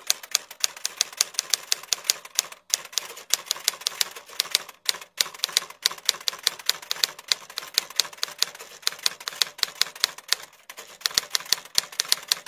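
Typewriter keys clacking in a quick, uneven run of strokes, several a second, with a few short pauses, as a typing sound effect.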